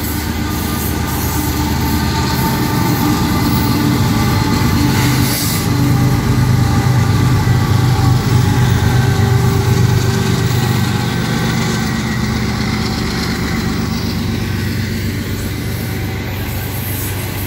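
Mid-train Union Pacific diesel locomotives passing close by, their engines droning loudest about halfway through, then loaded coal hopper cars rolling past on the rails.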